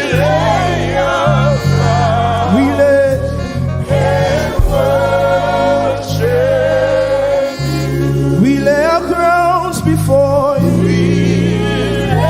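Live gospel worship music: singers holding long, wavering notes over a band with a stepping bass line and occasional drum hits.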